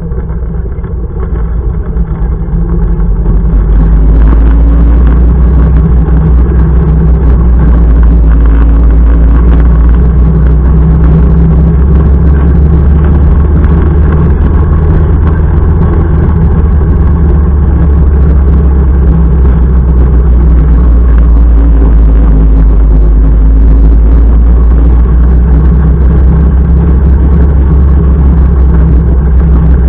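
Motorcycle under way on the road: a loud, steady drone of engine and rushing wind, which grows louder over the first four seconds and then holds level.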